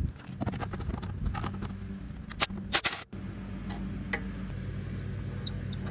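Metal clicks and clinks of a ratchet with a 13 mm deep-well socket being worked onto the caliper bolts of a rear brake caliper. Scattered light clicks, then a few sharper clinks about two and a half to three seconds in, over a steady low hum.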